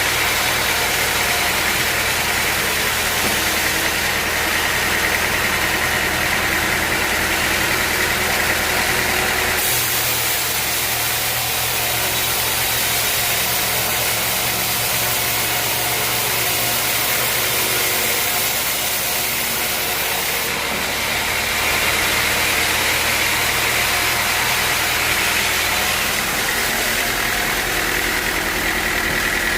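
Sawmill running: a steady engine hum under a high hiss. The sound changes abruptly about ten seconds and about twenty seconds in.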